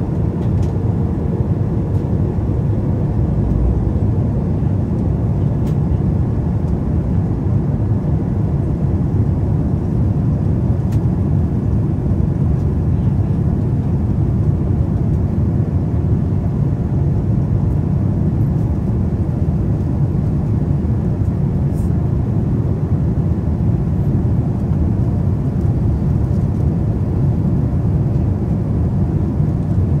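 Steady low rumble of cabin noise inside a Boeing 787-9 airliner descending on approach, from airflow and engines.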